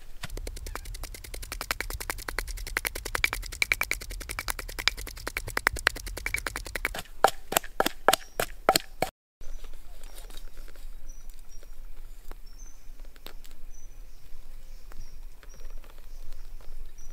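Wooden pestle pounding chilies, garlic and salt in a wooden mortar: rapid, closely spaced strikes, slowing to a handful of separate heavier strikes before stopping about halfway through. After that it is quieter, with short high bird chirps and a few faint taps.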